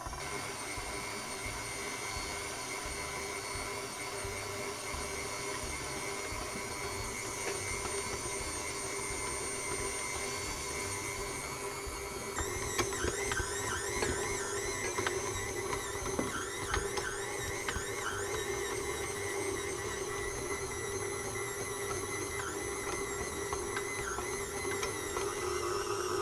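Electric stand mixer running on low with a dough hook: a steady motor whine as flour and a yeasted milk mixture are worked into a sticky dough. About halfway through the sound gets louder and more uneven as the dough comes together in the bowl.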